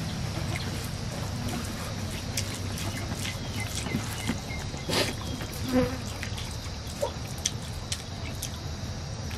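Close eating sounds: a hand squishing and mixing rice and curry on a banana leaf, with scattered small clicks and two louder knocks near the middle. Underneath runs a steady buzz of insects.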